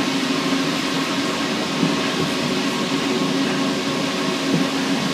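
Steady running noise inside a rubber-tyred Paris Metro Line 1 train travelling through a tunnel: an even rumble and hum with no distinct events.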